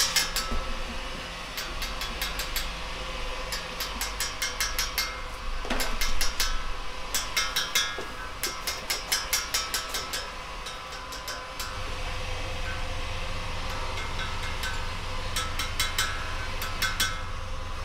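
Stone carver's mallet striking a steel chisel into pale carved stone, in quick runs of light taps with short pauses between, over a steady low workshop hum.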